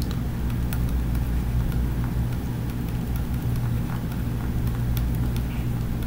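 Steady low hum, with a few faint ticks and scratches of a stylus writing on a tablet screen.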